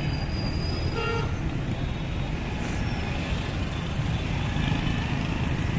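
Steady street traffic noise of a busy road, with a short vehicle horn toot about a second in.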